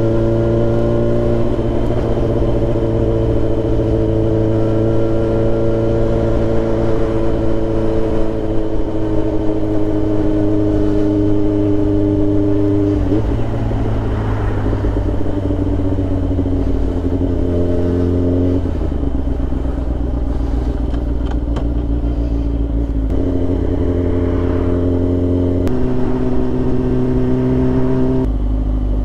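Sport motorcycle engine running under way, heard from the bike itself. It holds a steady pitch for long stretches, and the pitch jumps abruptly up or down several times.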